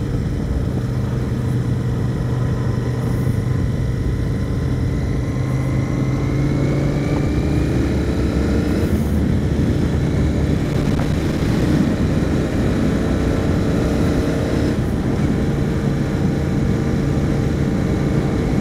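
Royal Enfield Continental GT motorcycle engine running at a steady low cruising speed, with wind and road noise. Its pitch rises gently in the middle and dips briefly a couple of times.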